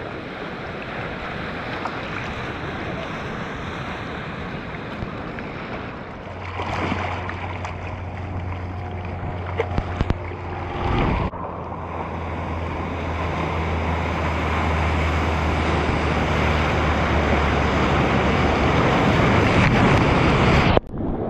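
Ocean water washing and splashing right around a surfer in small surf, with wind buffeting the microphone. A low steady hum runs under the middle stretch, and the sound breaks off abruptly twice, once near the middle and once just before the end.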